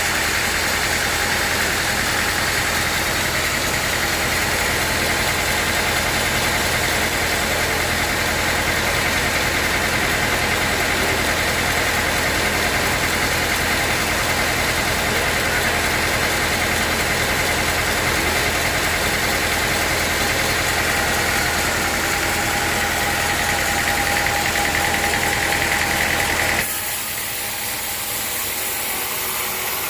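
Sawmill machinery running steadily, with a constant whine over a low hum. Near the end it gives way abruptly to a quieter, hissier sound.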